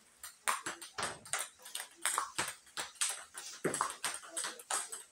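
Table tennis rally: the ball clicks sharply off the paddles and bounces on the table in a steady run of about two to three clicks a second.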